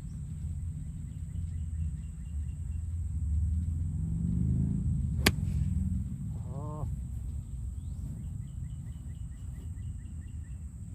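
A golf iron striking the ball from the fairway: one sharp click about five seconds in, over a steady low wind rumble on the microphone. Faint, high, repeated chirps come and go in the background.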